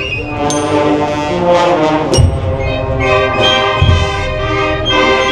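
A brass band playing a slow march: held chords from trombones and trumpets, with a low drum beat about every second and a half.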